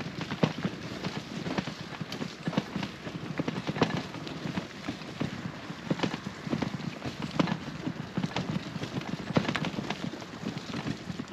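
Loaded touring bicycle rolling over a bumpy, wet gravel path, with irregular knocks and rattles from the bike and its load on each bump.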